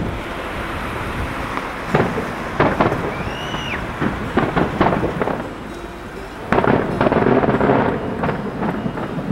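Fireworks display: a run of sharp bangs from bursting shells starts about two seconds in, with a short whistle that rises and falls in the middle. A louder, dense stretch of crackling follows about two-thirds of the way through, over a constant low rumble.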